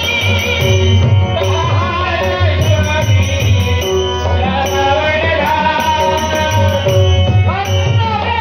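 Music: a held, bending melody over a steady low drum beat.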